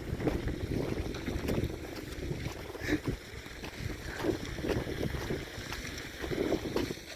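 Wind buffeting the microphone, with uneven gusts and a few scattered knocks.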